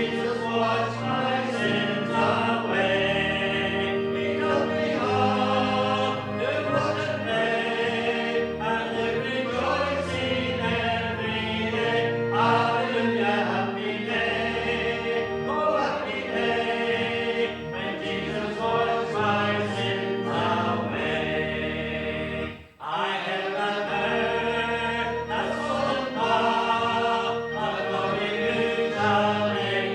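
A hymn sung by many voices with instrumental accompaniment. There is a brief break about two-thirds of the way through, between phrases or verses.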